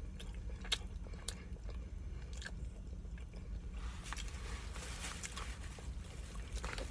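Close-up mouth sounds of a person chewing juicy rotisserie chicken, with sharp wet smacking clicks. About halfway through, a soft rustling hiss joins in.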